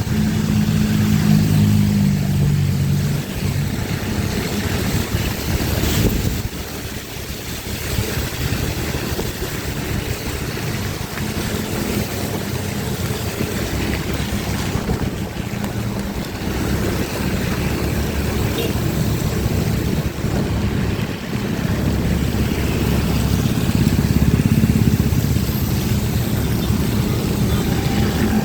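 A motor vehicle running along a rain-wet road: a steady engine hum under the hiss of tyres and spray on wet asphalt. The engine tone is strongest at the start and again near the end.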